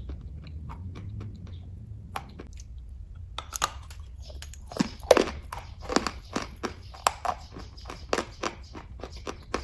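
Close-miked chewing and biting of kaju katli (cashew fudge): sparse soft mouth clicks at first, then from about three and a half seconds in a denser run of louder, sharper bites and chews.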